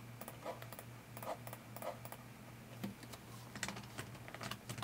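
Computer keyboard being typed on: faint, irregular keystroke clicks over a low steady hum.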